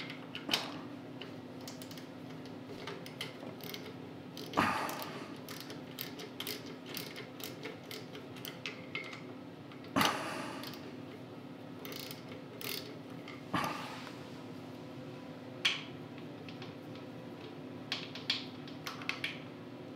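Hand socket ratchet clicking in short runs as the starter mounting bolts on a Tecumseh snowblower engine are worked loose, with a few sharper knocks of metal tool on metal.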